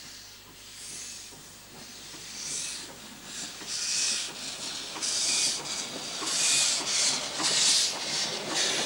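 Ex-Queensland Railways D17 steam locomotive No. 268 'Capella' moving off slowly with its cylinder drain cocks blowing: rhythmic hissing chuffs of steam, about one and a half a second, growing louder as it draws closer.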